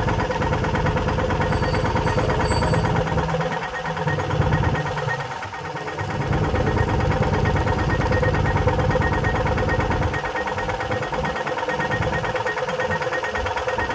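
Sonalika MM18 mini tractor's single-cylinder diesel engine running steadily at idle while the rear hydraulic lift raises and then lowers the three-point linkage. The low rumble dips briefly about five seconds in and changes again near the ten-second mark as the lift works.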